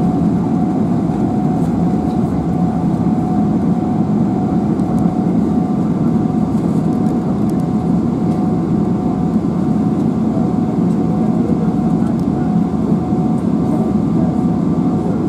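Steady cabin noise inside a Boeing 777-300ER taxiing: its GE90-115B engines at low taxi power together with the cabin air, an even rumble with a faint steady whine above it.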